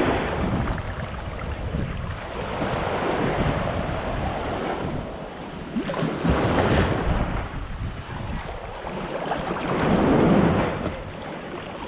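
Sea waves breaking and washing up a beach, the surf swelling about every three to four seconds, with wind buffeting the microphone.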